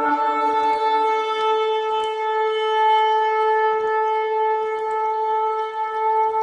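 A shofar (ram's horn) sounding one long, steady blast, held without a break.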